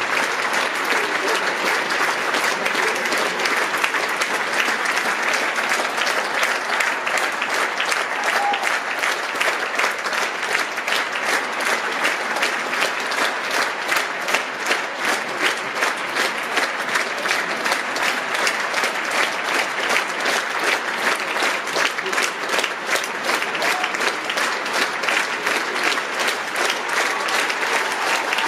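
Large theatre audience applauding a ballet curtain call. About halfway through, the clapping falls into an even rhythm, roughly two claps a second.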